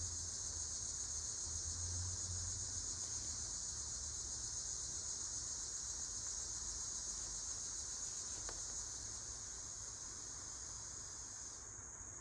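Insects chirring in a steady, high-pitched continuous chorus; near the end part of the chorus drops out, leaving a thinner, higher band.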